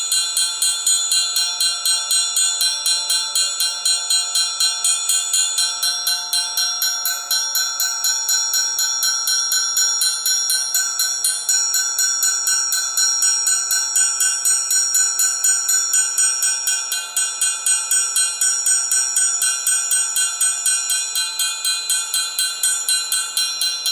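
Amplified triangle struck in a fast, even stream of strokes, its high metallic overtones ringing on steadily while some lower partials fade in and out.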